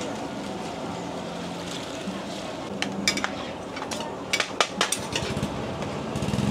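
Metal spatula and ladle stirring a bubbling gravy in a large wok, with sharp clinks of metal on the wok a few times about three seconds in and in a quick run about four and a half seconds in. Underneath are steady frying noise and a low hum.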